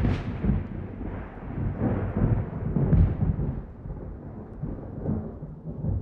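Rolling thunder over rain, a deep rumble that swells and fades in waves, with a sharper crack near the start and another about three seconds in.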